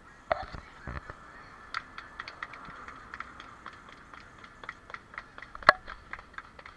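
Several people clapping their hands, a quick uneven patter of claps with one loud clap near the end.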